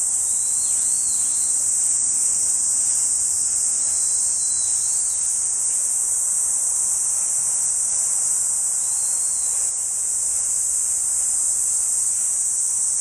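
Steady, high-pitched chorus of insects shrilling without a break, with a few faint short chirps above it.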